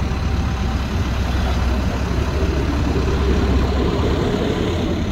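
Heavy diesel machinery engine running steadily and loud, with a deep low rumble.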